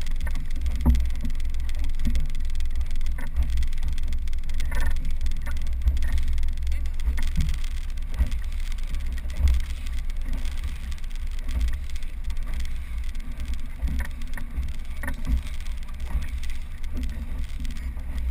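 Steady low rumble of a rubber inflatable boat under way on choppy water, with wind buffeting the microphone and a few small knocks and splashes against the hull.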